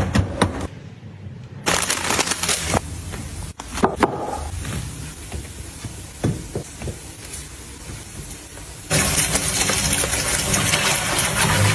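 Items being handled while restocking a fridge: scattered clicks and knocks, with a brief rush of noise about two seconds in. About nine seconds in, a louder, steady rushing noise starts and runs on.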